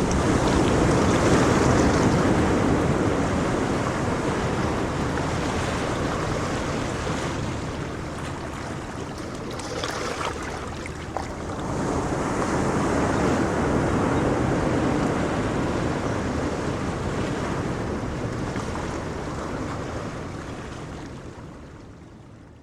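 Sea waves rushing and washing onto the shore, swelling twice with a lull between. The sound fades down near the end.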